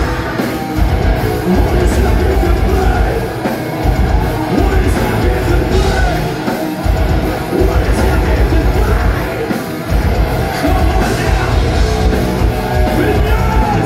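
Melodic death metal band playing live through a loud PA: distorted guitars, heavy drums and shouted vocals. The drums and bass drop out for an instant a few times in a stop-start riff.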